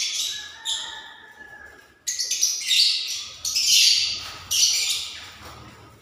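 A flock of small pet parrots chattering and squawking in loud bursts. One burst fades over the first second. After a short lull the chatter starts again suddenly about two seconds in and carries on, tailing off near the end.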